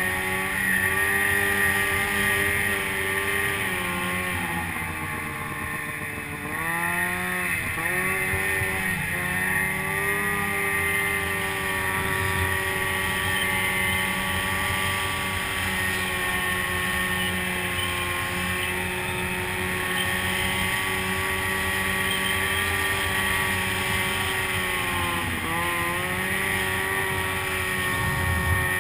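Snowmobile engine running at speed through deep powder, heard from the rider's seat. The revs drop sharply and climb back about seven seconds in, and dip briefly again near the end.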